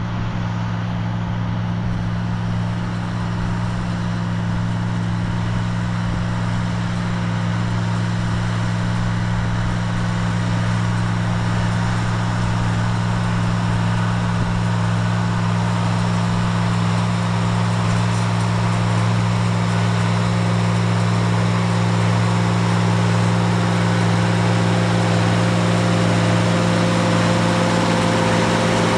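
Tractor engine running at a steady speed, driving a small square baler: a constant drone that grows a little louder toward the end.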